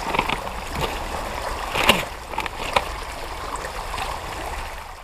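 River water running steadily, with scattered small splashes and knocks; the loudest comes about two seconds in.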